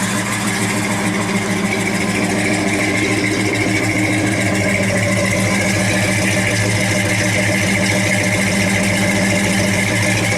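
1963 Chevrolet C30 one-ton truck engine idling steadily, a little warmed up after a cold start.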